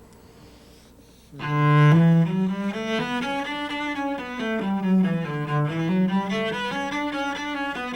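A cello playing scale runs up and down, mixing slurred and detached bow strokes in groups of four notes. It begins about a second and a half in.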